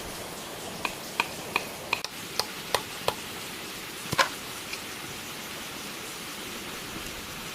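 Bamboo being struck, likely chopped or knocked during fence building: about eight sharp knocks with a short hollow ring, roughly three a second. Then a louder double knock and one faint one, all over a steady rushing hiss.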